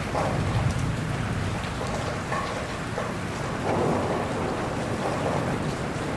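Steady rain falling, with scattered drops pattering and a low rumble in the first second.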